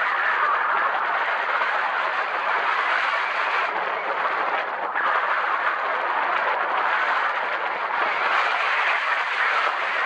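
Steady rush of wind over the microphone of a paraglider pilot's harness-mounted 360° camera in gliding flight.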